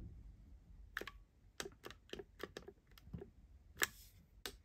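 Faint, irregular clicking of a finger pressing the plastic buttons on a Kotech wall thermostat, about nine presses. The time button is faulty and is not responding to the presses.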